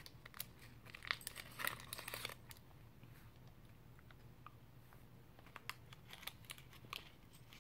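A Fantails caramel wrapper being unwrapped, crinkling densely for about the first two and a half seconds, then a few faint scattered clicks as the chewy chocolate-coated caramel is eaten.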